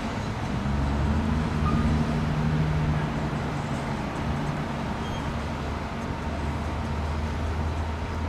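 A large vehicle's engine running with a low hum, louder for the first few seconds, over steady traffic noise.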